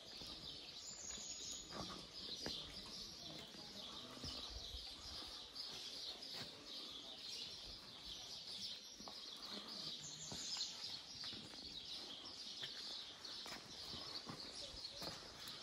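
Many small birds chirping and singing together in a steady, dense chorus, with occasional soft footsteps on cobblestones.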